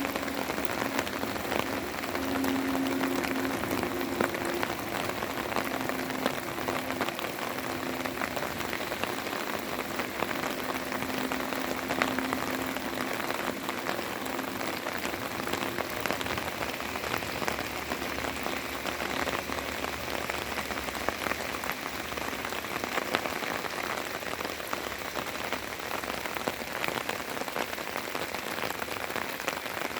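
Steady rain falling, an even hiss dotted with many separate drop ticks. A faint low steady hum sounds under it during the first several seconds.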